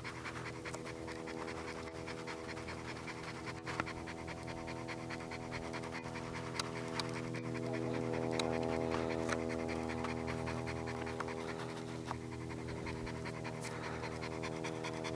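A dog panting in a quick, even rhythm over a steady low hum.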